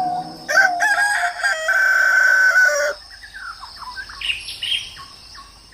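A rooster crowing once, a long call held on one pitch that drops away at the end. Short chirps of small birds follow, over a steady high insect drone.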